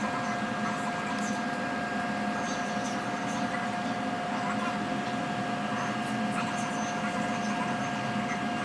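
A steady electrical or machine hum: a constant high whine over an even hiss, with faint scattered ticks.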